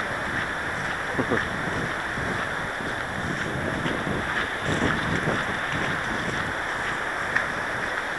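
Steady rushing wind and handling noise on the microphone of a small camera carried on foot, with a few faint passing voices.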